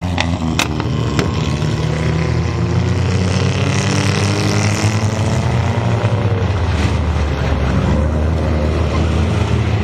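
Steady low drone of motors running, with three sharp clicks in the first second and a half.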